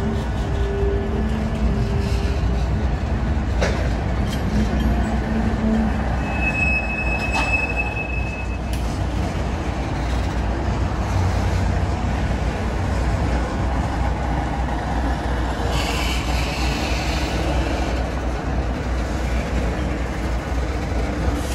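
Freight train tank cars rolling slowly past, a steady rumble and clatter of steel wheels on the rails. A brief high-pitched wheel squeal holds for about two seconds, some seven seconds in.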